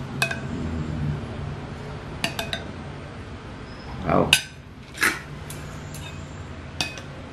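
Metal spoon and fork clinking and scraping against ceramic plates and a serving bowl as food is served and cut. Several sharp clinks, some ringing briefly. The loudest clatter comes about four seconds in.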